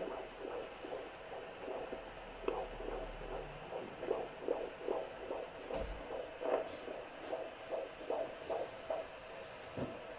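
Fetal heartbeat picked up by a handheld fetal Doppler and played through its loudspeaker: rapid, even pulses, about two and a half a second.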